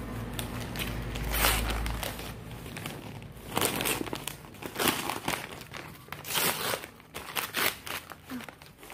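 Paper gift wrapping crinkling and tearing as a wrapped present is opened by hand, in quick irregular rustles.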